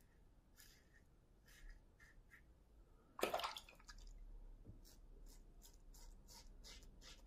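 Stainless-steel Syntesi double-edge safety razor with a Feather blade scraping through lathered stubble in short, crisp strokes, coming about three a second in the second half. A louder rush of noise about three seconds in.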